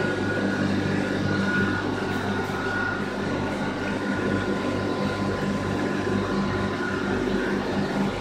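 Steady electrical hum of the pumps and filtration equipment running a room of marine aquarium holding tanks, with a low mains-frequency drone and a faint higher whine over a wash of water and air noise.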